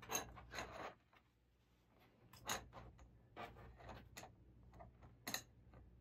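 Faint handling sounds of a Triumph Spitfire's steel timing chain being fitted around its cam and crank sprockets by hand on cardboard: soft rustling in the first second, a brief pause, then scattered light clicks of chain links and sprocket.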